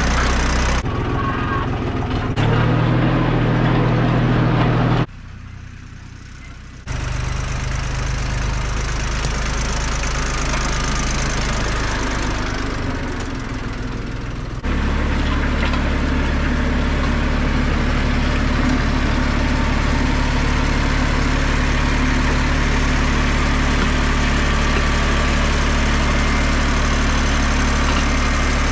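Jinma LD254 compact tractor's diesel engine running steadily while the tractor drives and pushes backfill dirt with its loader. It dips briefly about five seconds in and is louder and steadier from about halfway on.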